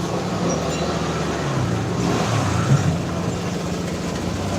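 Small single-cylinder scooter engine, a Yamaha Mio Soul i, running steadily, with a brief louder bump a little past halfway.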